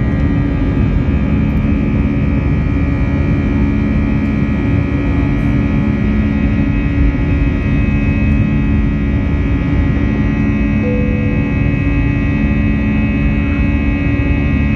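Airbus A320 jet engines running at climb power after takeoff, heard from inside the passenger cabin: a steady roar with a low hum and a high whine held throughout.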